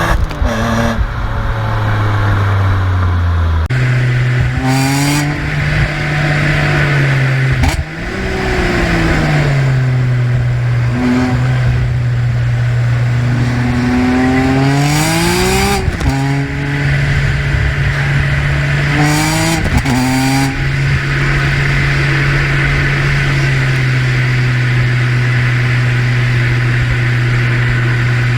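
BMW E46 M3's 3.2-litre straight-six (S54) engine idling and being blipped, about five short free revs that climb and drop straight back to idle, the longest roughly midway; it settles to a steady idle for the last several seconds.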